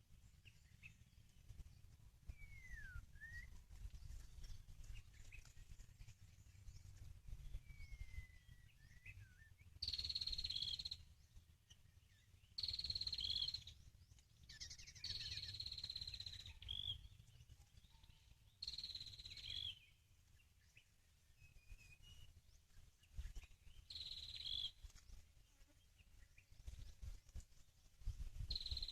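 White-rumped shama (murai batu) calls of the kind used to lure the bird: a high whistled phrase, a held note ending in a short downward hook, repeated six times a few seconds apart. Fainter gliding calls of other birds come earlier, over a low steady rumble.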